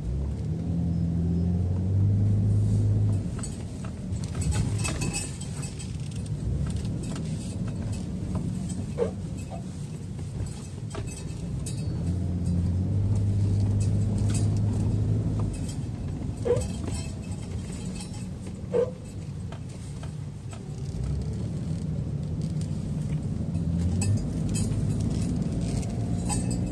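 Brake system of a 2016 Lexus RX 450h hybrid making an odd low hum each time the brake pedal is pressed. The hum swells and fades in several episodes, with a few short squeaks between. The owner takes it for an abnormal noise, though the Lexus dealer found nothing wrong.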